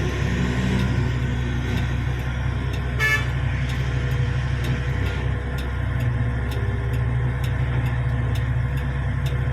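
Diesel engines of a large mining excavator and haul truck running with a deep, steady drone. A short horn toot sounds about three seconds in.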